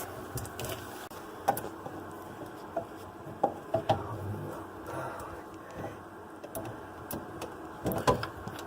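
Light clicks and knocks of sink drain pipe parts being handled as the slip nut, washer and P-trap are fitted under a bathroom sink, a few scattered taps with a small cluster near the end.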